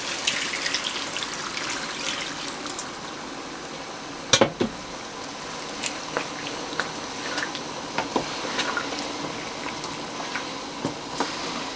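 Pot of black-eyed peas and meat cooking with a steady hiss and bubbling, its liquid just added, with scattered clinks against the pot. The loudest knocks come about four seconds in.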